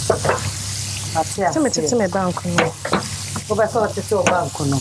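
Food sizzling in a hot pan on the stove, stirred with a wooden spatula. A voice carries on over the frying through most of it.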